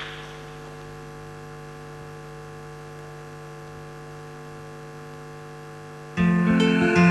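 A steady electrical hum with a few evenly spaced tones. About six seconds in, music starts suddenly and much louder.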